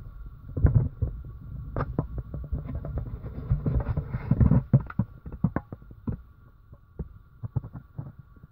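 Asian palm civet eating wet mash from a plastic basin: a run of quick wet smacking and lapping clicks, densest about four seconds in and thinning out towards the end. Low rumbling sits under them, busiest in the first half, and a faint steady whine runs behind.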